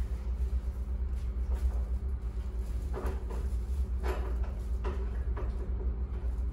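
A steady low hum with four short knocks or clatters in the middle.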